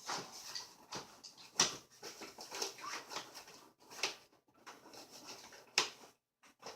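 Plastic stroller seat being wrestled around and pushed into its snap-fit mount, giving a string of separate knocks and clicks. The seat is a tight squeeze in this facing position.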